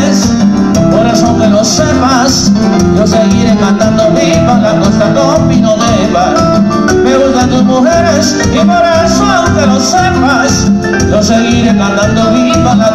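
Loud live Latin dance music from a keyboard band, with a steady beat and a wavering lead melody.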